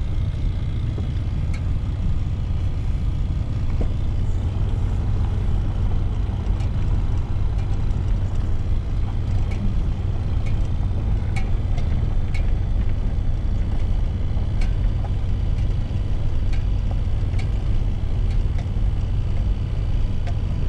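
Vehicle driving slowly on a dirt road: a steady low rumble of engine and tyres, with scattered light ticks.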